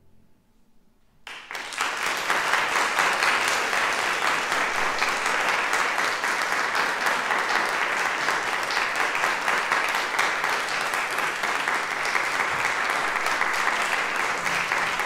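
An audience applauding, starting suddenly about a second in and keeping up a steady clapping, just after a faint last note of the piece dies away.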